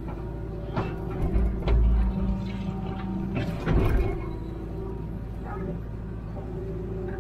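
Hitachi Zaxis 210W wheeled excavator's diesel engine running steadily, heard from inside the cab. Several knocks and low thumps come as the arm and bucket scoop and lift soil, the loudest about four seconds in, then the engine runs on steadily.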